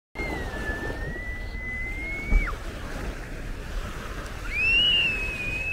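Beach ambience: small waves washing on the sand, with wind on the microphone. Two long, high, nearly even tones sound over it, one at the start lasting about two seconds and another rising in about four and a half seconds in and holding.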